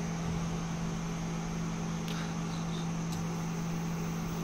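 Induction cooktop running while it heats an empty kadhai: a steady low electrical hum with the whir of its cooling fan.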